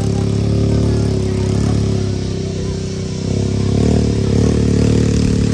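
Engine running steadily, then its revs rising and wavering and its sound getting louder about three seconds in.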